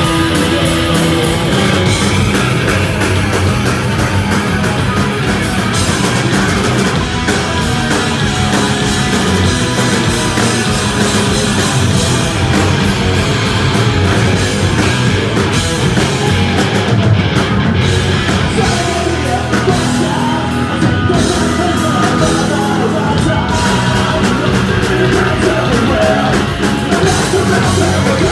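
Live punk rock band playing loudly: electric guitar, bass guitar and a drum kit, with shouted vocals.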